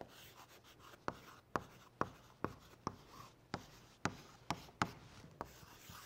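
Chalk writing on a blackboard: a string of sharp chalk taps and short scratching strokes, about two a second.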